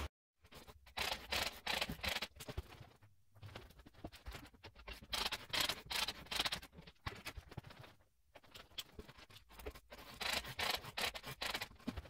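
Fast-forwarded work sounds of a Torquemaster garage door spring being wound: quick, chattering scrapes and rustles in irregular bursts, with short pauses about three and eight seconds in.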